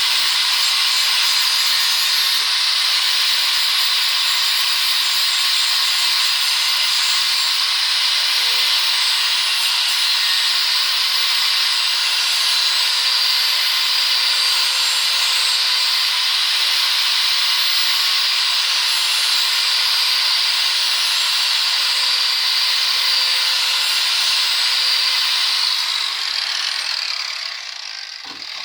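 Angle grinder with a flap disc grinding a high-carbon steel karambit blade: a loud, steady, hissing grind over the motor's whine. It winds down and fades over the last few seconds.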